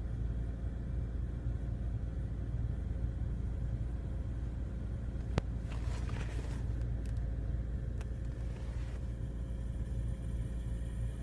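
Steady engine and road rumble inside a car cabin, with a soft hissing rustle about halfway through that begins with a sharp click. A thin, high whistle starts near the end: the intermittent cabin whistle that comes and goes every 15 to 30 seconds and that the owner says is not from the heater fan.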